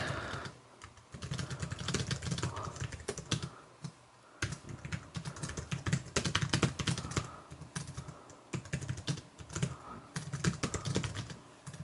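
Typing on a Logitech K810 Bluetooth keyboard: quick runs of light key clicks with short pauses, the first about a second in and a brief gap about four seconds in.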